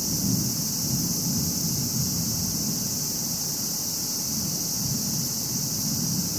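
Low, rolling rumble of distant thunder that swells and eases in slow waves, over a steady high hiss.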